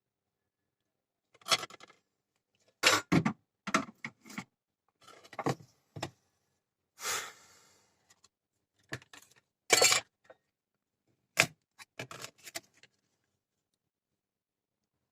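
Irregular clicks, knocks and short clatters of small tools and phone parts being handled and set down on a workbench, with a brief scrape about seven seconds in.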